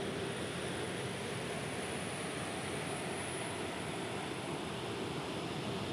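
Boeing RC-135W Rivet Joint's CFM F108 turbofan jet engines running as the four-engine jet taxis. A steady rushing noise with a thin high whine and a low hum.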